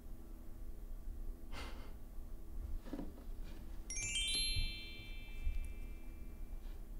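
A sparkling chime sound effect: a quick downward run of bell-like notes that ring on together for about two seconds. Before it come a couple of soft breathy rustles.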